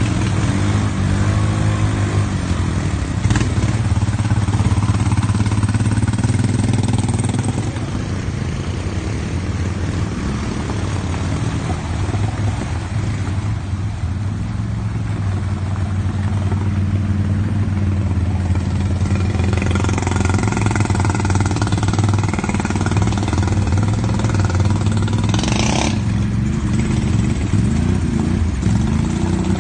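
Single-cylinder Honda ATV engine running steadily at low throttle while wading through deep water, with water churning around it. The engine picks up a little about twenty seconds in.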